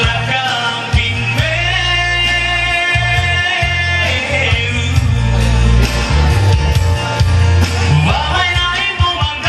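A man singing into a microphone over amplified band music with a strong, steady bass, his voice sliding and holding long notes.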